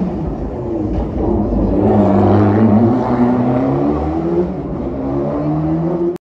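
Rally car engine accelerating hard through the gears, its pitch climbing, falling back at each shift and climbing again. The sound cuts off abruptly about six seconds in.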